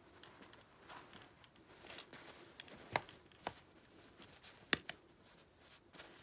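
Faint rustling of a hand pressing on a plush Ernie doll, with a few sharp clicks; the loudest click comes near the end.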